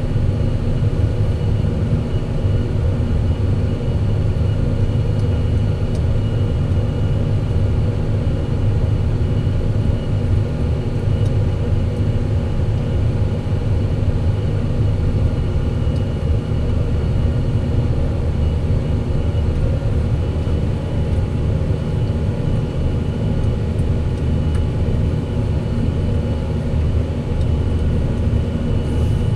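Fendt 718 tractor's six-cylinder diesel engine running steadily under load while pulling a plough, a constant deep drone with no change in speed.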